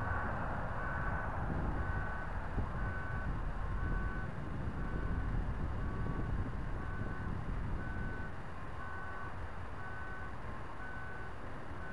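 Electronic beeper sounding a short beep about once a second, steady and unchanging, over a low rumble.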